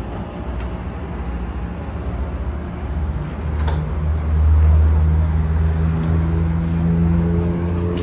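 Low, steady hum of an electric tram standing at a platform, swelling louder about halfway through, with a single sharp click shortly before the swell.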